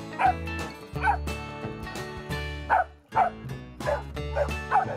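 Background music with a steady beat, over which a dog yips and whines repeatedly in short, high, falling calls.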